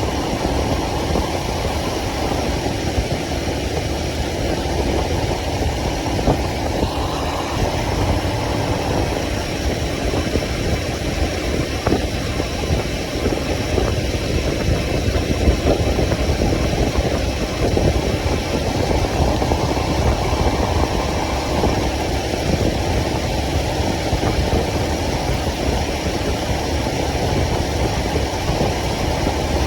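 Motorcycle engine running steadily during a ride, with its level varying only slightly.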